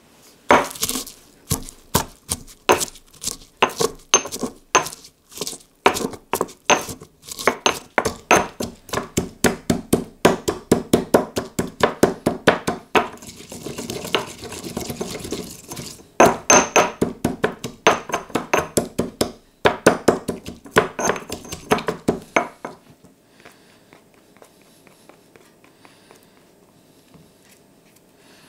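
Stone pestle pounding sliced red chilli, garlic and rock salt in a heavy black stone mortar, crushing them into a paste: sharp knocks about three a second, with a stretch of grinding around the middle. The pounding stops about 22 seconds in.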